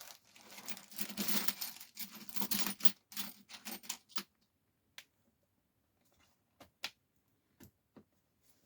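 Plastic snap clips on the casing of a 2019 Samsung tablet clicking and crackling as the edge is pried open: a dense run of clicks for about four seconds, then single clicks about once a second.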